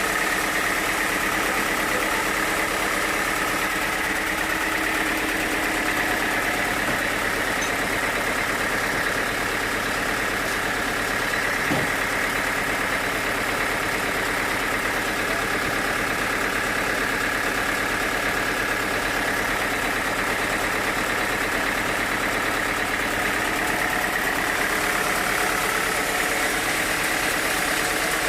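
Sawmill machinery running steadily: a continuous mechanical drone with a steady high whine, without pauses.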